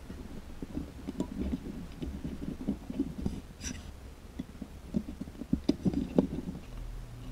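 Perforated metal Meccano plates and parts clicking and clattering as they are handled and lifted off the model truck, with a few sharper clicks about five to six seconds in.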